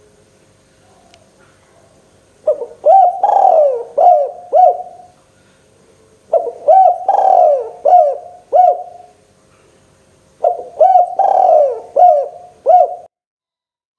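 Spotted dove cooing in three phrases of about five rolling coos each, roughly four seconds apart. The sound cuts off suddenly near the end.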